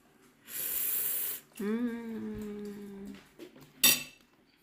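A short hiss of breath-like noise, then a voice humming a long, steady 'mmm' on one pitch for about a second and a half, then one sharp metallic clink near the end.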